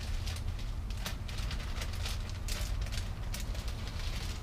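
Soft rustles and light clicks from a plastic zip-top bag as grated Parmesan is shaken out of it into a pot, over a steady low hum.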